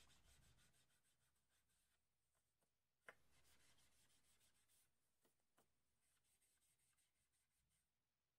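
Very faint rubbing of a small ink applicator dabbed along the edges of paper cards, with one light tap about three seconds in and a couple of tiny ticks later.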